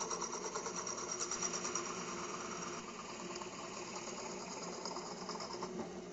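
Drill press spinning a glued-up stack of birch plywood discs on a 1/4 inch rod while it is sanded, a fast, even pulsing rasp of abrasive on turning wood that starts suddenly and eases off near the end.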